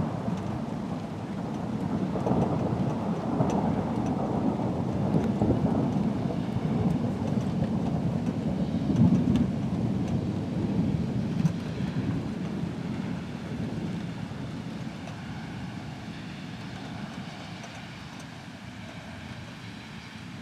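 Long rolling thunder rumble that swells a couple of seconds in, peaks around nine seconds, then slowly dies away, with rain hissing underneath.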